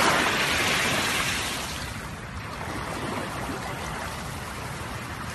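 Small waves washing onto the shore: one breaks and hisses loudly at the start, its wash fading over a couple of seconds into a steady sea hiss.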